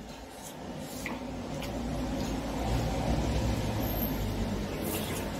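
A low rumble that swells over the first three seconds and then holds, with a few faint clicks of metal spoons against ceramic soup bowls.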